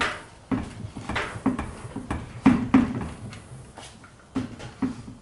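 A string of irregular knocks and clunks, the loudest pair about halfway through, as the Subaru EZ30R flat-six engine is worked against the transmission. The engine will not seat because a dowel pin is binding.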